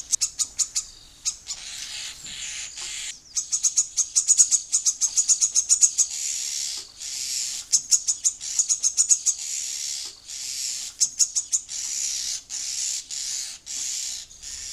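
Common starling calling loudly and without pause: fast rattling trains of clicks alternating with harsh, hissing screeches, over and over with brief gaps. These are the female's cries urging her mate to keep bringing food.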